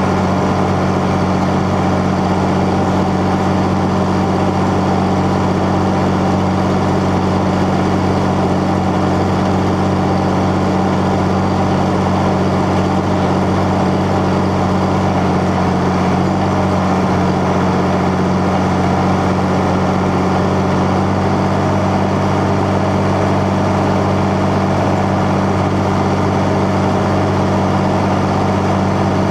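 Older Fendt tractor's diesel engine running at a steady speed while the tractor drives along, heard close to its upright exhaust stack on the bonnet. The deep, even note holds without any change in revs.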